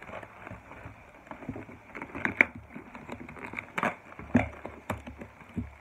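Cardboard shipping box being torn open by hand, with plastic and paper wrapping rustling: a string of irregular sharp crackles and rips, loudest a little past the middle.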